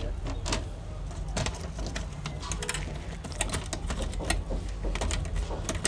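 Scattered light clicks and taps of plastic and small parts being handled as an HP G4 laptop's display panel is fitted back onto the opened machine, over a steady low hum.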